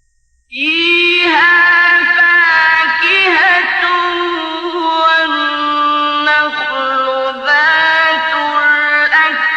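A man's voice reciting the Quran in melodic tajweed, after a brief silence at the start. He draws out long held notes with ornamented glides in pitch and pauses briefly for breath twice near the end.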